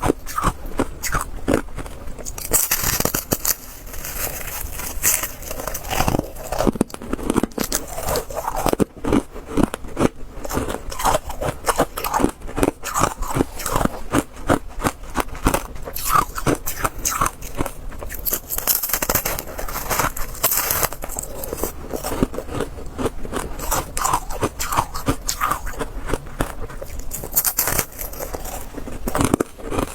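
Close-miked crunching of ice being bitten and chewed: a dense, continuous run of sharp cracks and crunches, with a few brief stretches of brighter, sharper crackling.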